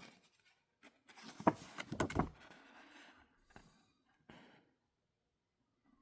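Handling noises as objects are moved about: a few knocks and rustling, the loudest a sharp knock about a second and a half in, with quieter ones after.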